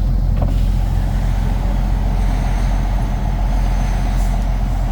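Semi truck's diesel engine running steadily, heard from inside the cab, with a faint steady whine over it.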